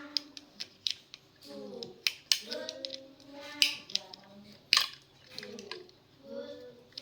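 Irregular sharp clicks and clacks of tools and parts being handled, about a dozen, with a voice talking or singing in the background.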